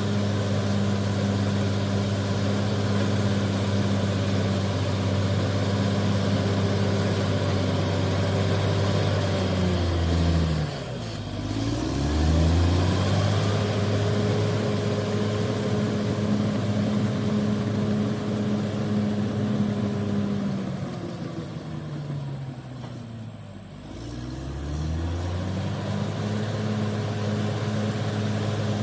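Heavy diesel engine of a bulldozer working to get free of mud, running steadily. Twice, about ten seconds in and again a little past twenty seconds, it is pulled down sharply in speed and then revs back up, as if lugging under load. A faint high whine runs above it.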